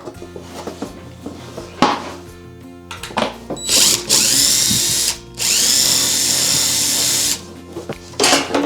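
A power tool's motor run in two bursts of a second or two each, spinning up at the start of each, after a few light knocks; background music plays throughout.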